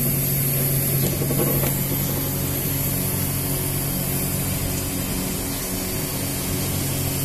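Crown RR 5700-series reach truck's electric hydraulic pump motor running with a steady drone and hiss as the mast raises the forks, stopping abruptly near the end.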